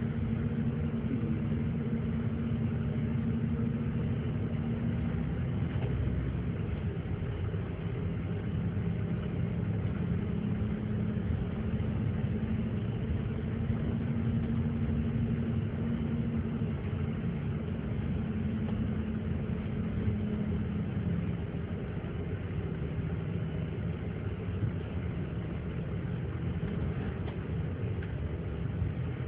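A vehicle engine running steadily while driving, heard from inside the vehicle, with road noise under it. Its humming pitch drops and rises a few times as the speed changes.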